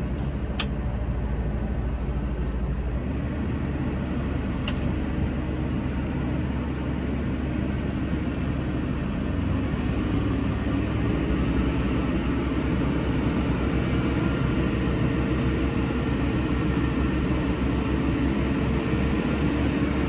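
Massey Ferguson 5S.145 tractor running steadily, heard from inside the cab. The low hum changes about three seconds in, and a faint steady whine joins it from about ten seconds in.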